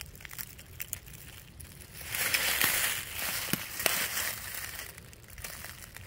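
Dry leaves, twigs and brush crunching and crackling, loudest for about a second starting two seconds in, with a couple of sharp snaps soon after.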